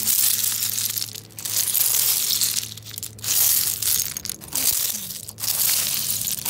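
Broken clam shells and beach pebbles clattering and crunching as a hand digs and stirs through them, in about five bursts with short pauses between.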